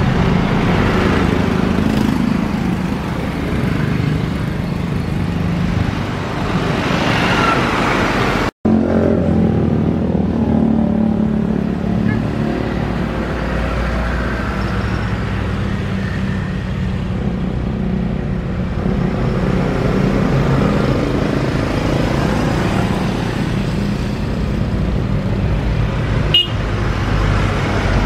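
Boeing 787-8 airliner's jet engines running steadily as it lands and rolls out on the runway, a loud, even noise with a low hum underneath. The sound drops out for an instant about a third of the way in.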